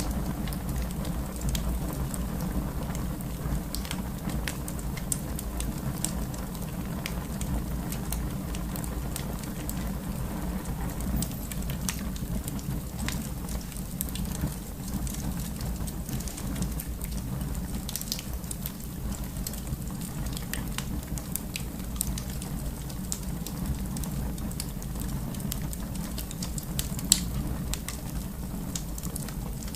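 Wood fire in a fireplace crackling over a steady low rumble, with scattered snaps and one louder pop near the end.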